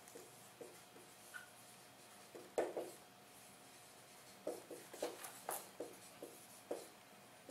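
Dry-erase marker writing on a whiteboard: short separate strokes, a pair about two and a half seconds in, then a quick run of them from about four and a half seconds until near the end.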